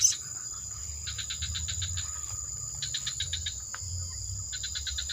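Bird-lure call (suara pikat) playing from an MP3 player: trains of rapid, evenly spaced high chirps, each about a second long, repeating every second or two over a steady high-pitched whine.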